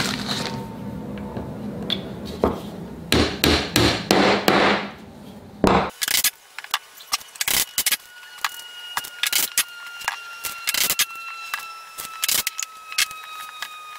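A claw hammer tapping wooden dowels down into their glued holes in a wooden rail: many sharp knocks in quick clusters.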